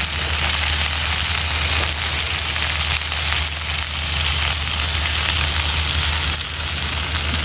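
King fish (vanjaram) steaks in a masala coating, shallow-frying in sesame oil on their second side: a steady sizzle of bubbling oil, with a steady low hum underneath.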